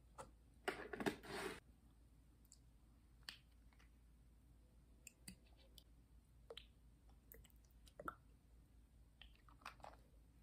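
Quiet tabletop handling sounds: a short rustling burst about a second in, then a few faint, scattered clicks as a condiment bottle is picked up and handled.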